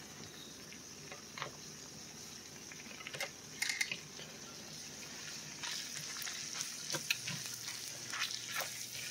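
Dried beef, melted butter and flour sizzling in a cast iron skillet as the flour starts to cook into a roux for gravy: a steady hiss with scattered crackles and pops, busier and a little louder in the second half.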